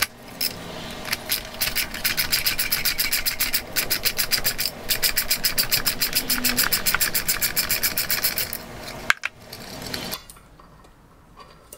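Socket ratchet clicking rapidly, stroke after stroke, as it backs off the bolt of a valve spring compressor on a cylinder head to release a valve spring once its keepers are out. The clicking stops about nine seconds in, followed by a single knock.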